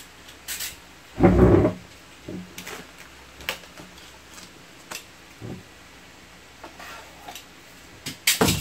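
Handling noises from a PC power supply's cables and cardboard packaging: a heavy thump about a second in, scattered light clicks and knocks, and another sharp knock near the end.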